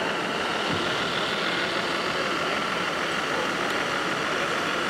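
The engine sound module of an RC heavy-haul truck runs steadily as the truck drives slowly, heard over the even noise of a busy exhibition hall.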